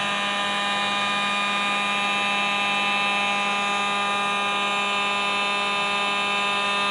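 Handheld TGF hot air gun running steadily, its small fan motor giving a constant whine of several fixed tones over the hiss of hot air blowing out.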